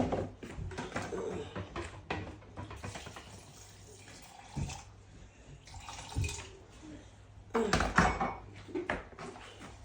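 Water being added to soaked beans in a kitchen, with irregular clinks and knocks of dishes and utensils.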